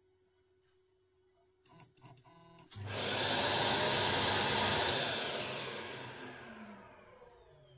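A few clicks, then a dust-extraction vacuum cleaner switches on with a rush of air, runs for about two seconds and is switched off, its motor whine falling as it spins down.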